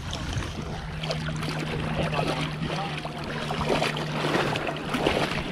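Sea water sloshing and splashing close to a camera held at the surface, as dogs swim and paddle through shallow water. A steady low hum runs underneath and stops about four seconds in.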